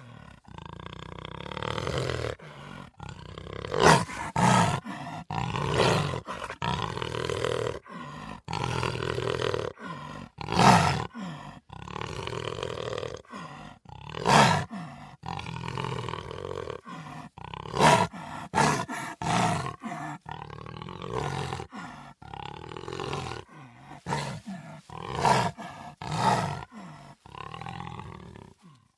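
Cougar (puma) vocalizing in a long series of calls, about a dozen louder ones standing out among quieter, drawn-out ones, stopping abruptly at the very end.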